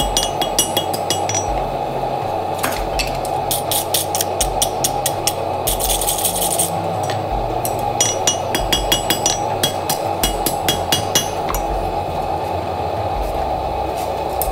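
Hand hammer striking a hot flat steel bar on an anvil in quick runs of blows, several a second, each blow ringing off the anvil. The blows stop a few seconds before the end. A steady rushing noise runs underneath.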